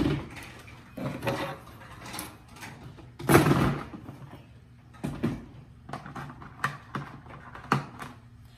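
Hands handling small tools and parts: scattered clicks, knocks and rustles as things are picked up and moved, with one louder, longer rustle about three seconds in, while an Allen key is fetched for tightening a scope-camera adapter.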